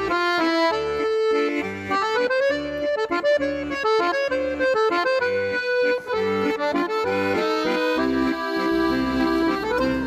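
Background music: a melody of held notes over a bass line that repeats at a steady, bouncing pace.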